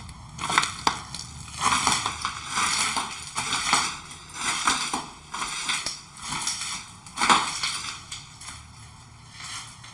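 Irregular crunching and crinkling rustles in uneven bursts, with one sharper crunch about seven seconds in.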